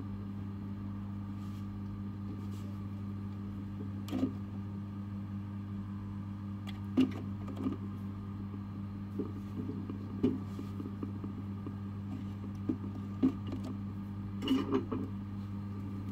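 A steady low electrical hum, with several light clicks and taps scattered through it.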